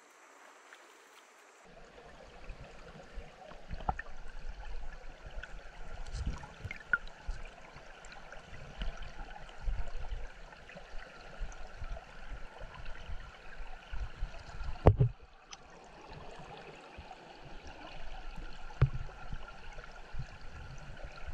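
Flowing river water, a steady rushing that starts about two seconds in, with scattered low bumps and one sharp knock about fifteen seconds in.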